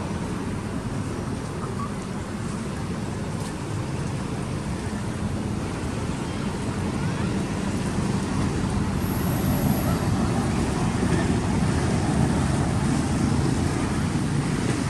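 Steady low rumble of outdoor background noise that grows a little louder about halfway through.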